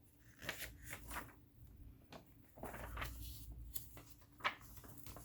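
Faint rustles, scrapes and small clicks of hands threading a vintage Electra sewing machine, with one sharper click about four and a half seconds in.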